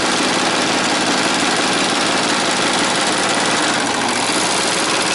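Husqvarna Viking Amber Air S|600 serger running steadily at full speed, sewing a four-thread overlock stitch on a scrap of fabric.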